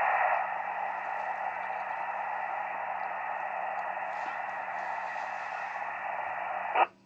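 Amateur FM transceiver's speaker giving a steady hiss from a strong jamming signal on the 145.700 MHz repeater channel. The hiss drops slightly about half a second in, then cuts off with a click near the end.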